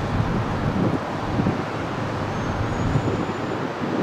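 Gusty wind rumbling on the microphone over the steady noise of a taxiing Boeing 737-300 freighter's CFM56 jet engines. About halfway through, a thin high whine is heard for about a second.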